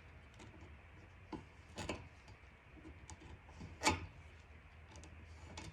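A few faint clicks and light knocks of small metal hand tools being handled during a spark plug thread insert repair, the loudest about four seconds in.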